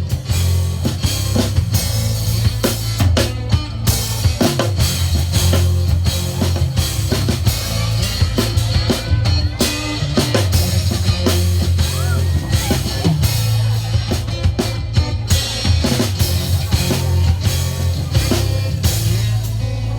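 Instrumental passage of a song without vocals: a drum kit with bass drum and snare keeps a steady beat over a deep, sustained bass.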